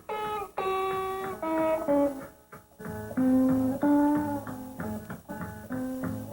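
Guitar music: a melody of single plucked notes, joined by a lower bass line about three seconds in.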